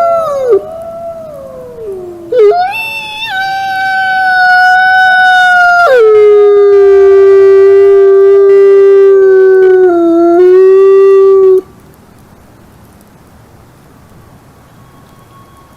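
Wolves howling: long drawn-out howls gliding down in pitch, then a new howl about two and a half seconds in that rises, holds, and steps down to a lower held note around six seconds in. It cuts off suddenly near the twelve-second mark, leaving only a faint hiss.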